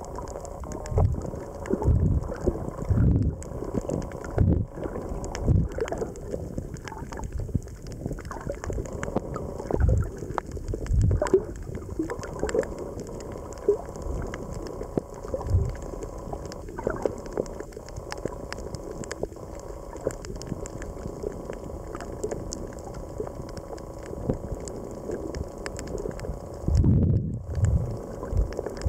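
Muffled underwater sound picked up by a camera in a waterproof housing near the surface: water sloshing and gurgling with irregular low thumps, heaviest at the start and again near the end, over a scatter of faint sharp clicks.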